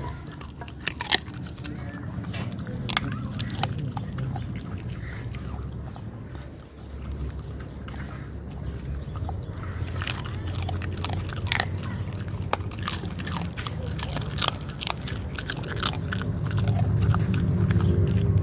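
Dog eating a home-cooked meal of chicken and rice from a bowl: repeated chewing and sharp crunches throughout.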